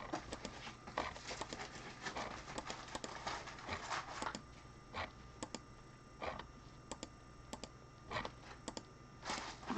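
Faint, irregular clicking of a computer mouse and keyboard, dozens of sharp clicks spread through, as a list is re-randomized eleven times.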